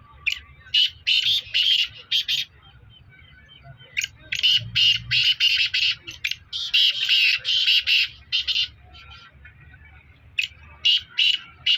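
Francolins (teetar) calling in quick runs of short, sharp, repeated notes, three runs with quieter pauses between, the middle run the longest.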